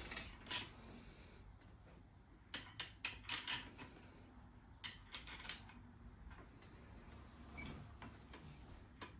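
Light clicks, clinks and knocks of small metal printer parts and hardware being handled, in two short bunches a few seconds apart.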